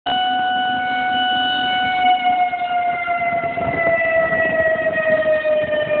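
Outdoor tornado warning siren sounding one continuous wail, its pitch sinking slowly.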